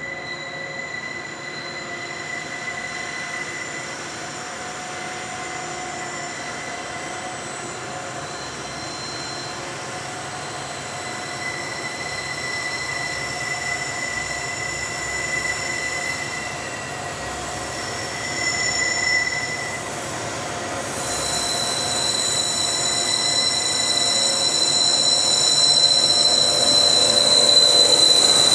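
Freight train led by SCT-class and CSR-class diesel locomotives rounding a curve, its wheel flanges squealing with steady high-pitched tones over the rumble of the train. The sound grows louder as the train approaches, and a stronger high squeal sets in about two-thirds of the way through as the locomotives come alongside.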